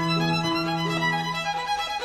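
Background instrumental music led by a violin, playing held notes over a sustained low note that drops out about one and a half seconds in.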